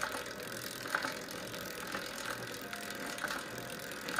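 Bicycles rolling along a paved path: a steady hiss with light mechanical clicks about once a second.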